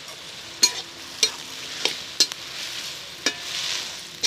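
Chopped tomatoes sizzling in a metal wok while a metal spoon stirs them, scraping and knocking against the pan about six times, with a brief metallic ring after some of the knocks.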